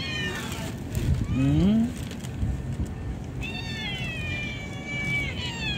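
Young cats meowing for food in high-pitched calls: a few short meows at the start, then one long meow that falls slightly in pitch near the end. A short, lower rising sound about a second and a half in is the loudest moment.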